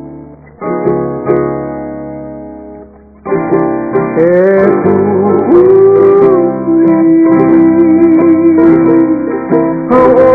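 Hawaiian song: a few plucked chords ring out and fade, there is a brief pause, then singing comes in about three seconds in over the accompaniment.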